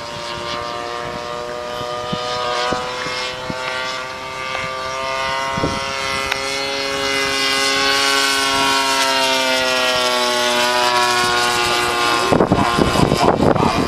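Cessna L-19/O-1 Bird Dog's six-cylinder piston engine and propeller droning steadily, the note rising a little and settling back around the middle. About a second and a half before the end, wind buffeting the microphone takes over and covers it.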